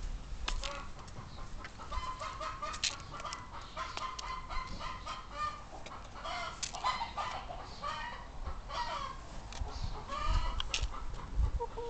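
A flock of brown hens clucking continuously, with many short overlapping calls, while they feed on grain, and occasional sharp clicks.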